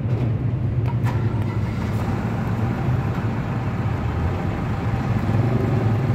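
Steady low rumble of motor-vehicle engines, even throughout with no breaks.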